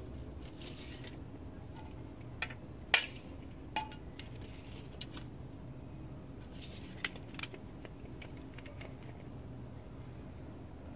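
A handful of sharp metallic clicks and clinks from a steel tape measure being handled against steel angle iron, the loudest about three seconds in and a couple more near the seventh second, over a steady low background hum.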